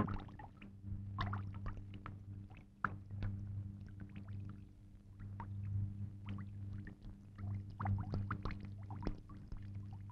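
Faint, steady low hum with scattered soft clicks and crackles.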